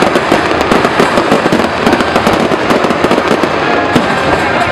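Fireworks going off in a dense, rapid barrage: many bangs and crackles overlapping without a break.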